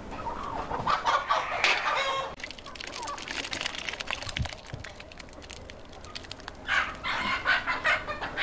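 Chickens clucking and calling, once about half a second in and again near the end. In between there is a spattering patter as hot parboiled rice and water are tipped from a pot into a metal basin.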